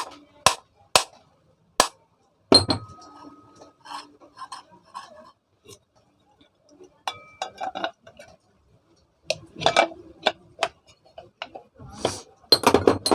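Metal ceiling-fan parts and tools knocking and clinking as they are handled during a bearing change. There are four sharp taps in the first two seconds, then irregular clinks, some with a brief ringing tone.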